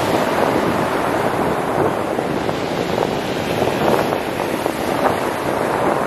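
Black Sea surf breaking on a pebble beach: a steady, loud rush of waves with a few brief swells, mixed with wind buffeting the microphone.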